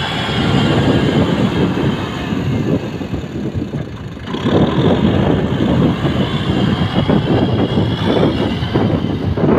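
Kubota M6040SU tractor's diesel engine working hard as the tractor, stuck in deep mud, tries to drive out. The sound drops briefly about four seconds in, then comes back louder.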